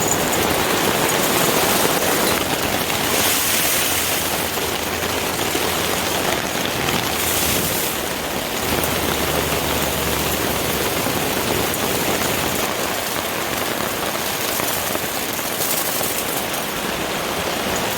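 Heavy storm rain coming down hard and steadily, a dense even hiss that turns harsher for a few short spells.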